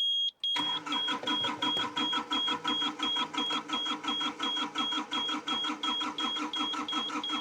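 Hitachi EX55UR mini excavator's diesel engine cranking over on the starter at an even rhythm of about three strokes a second without catching. A high-pitched warning beep sounds alongside, cut into short pulses in step with each stroke; the steady beep stops just before the cranking starts about half a second in.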